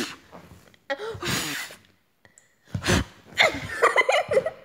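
A person's voice making short breathy gasps or puffs of breath, then about a second of unclear voiced sounds near the end.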